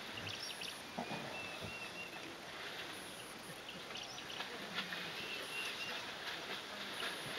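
Birds chirping, with two short runs of whistled notes, over a steady outdoor hiss.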